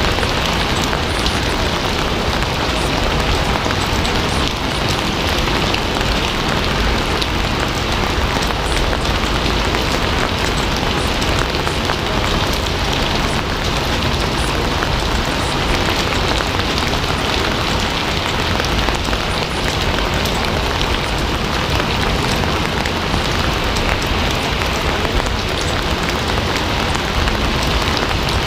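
Steady rain falling on a surface, a dense even patter of many small drops with no let-up.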